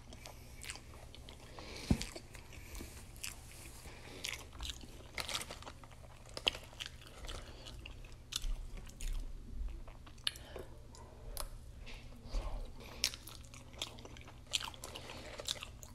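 Close-miked chewing and biting of Wingstop voodoo fries, seasoned fries topped with cheese sauce and ranch: soft, irregular crunches and wet mouth clicks, with a sharper knock about two seconds in.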